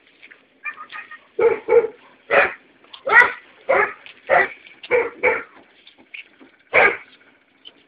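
A dog barking repeatedly, about nine short barks in an uneven series with brief gaps between them.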